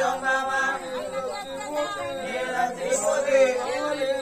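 Oggu Katha folk singers chanting a Telugu narrative song, with male voices holding long sung notes.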